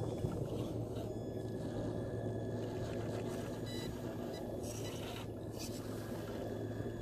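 Radio-controlled scale crawler truck climbing rock, its electric motor and gears whirring steadily with a low hum, and a few brief scrapes from the tyres on the rock.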